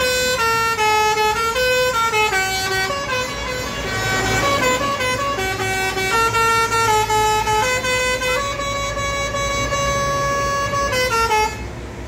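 Bus's telolet basuri musical air horn playing a tune of stepped notes, one note after another for about eleven seconds, then cutting off suddenly near the end. A low engine rumble runs underneath.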